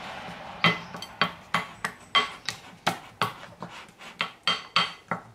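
Pancake batter being stirred briskly with a wooden spoon in a glass mixing bowl: a steady run of knocks, about three a second.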